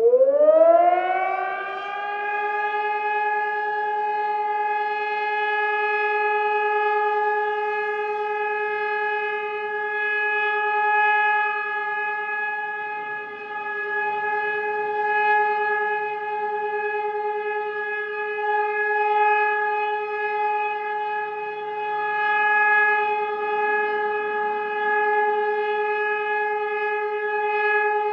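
Emergency siren winding up in pitch over about two seconds, then holding one steady, sustained wail with a rich, buzzy tone and slight swells in loudness.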